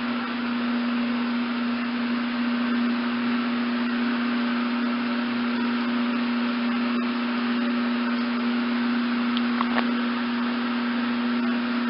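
Shower water running steadily, an even hiss with a constant low hum under it.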